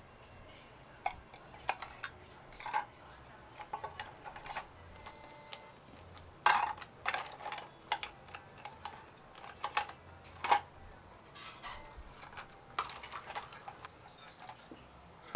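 Hard household items being handled and set down, making irregular clinks and taps, loudest about six and a half and ten and a half seconds in.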